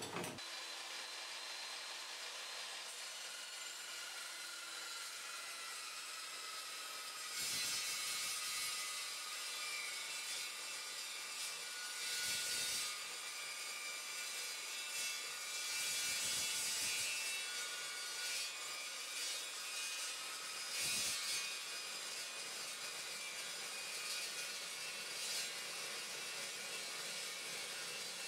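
Evolution Evosaw 355 14-inch metal-cutting chop saw with its carbide-tipped blade running with a steady high whine. From about seven seconds in it cuts through mild steel channel, with louder surges of cutting noise every few seconds.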